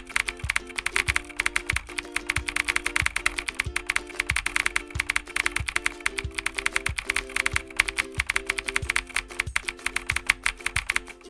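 Rapid computer-keyboard typing clicks, a typing sound effect that runs with the text being typed out on screen, over simple background music with a steady beat.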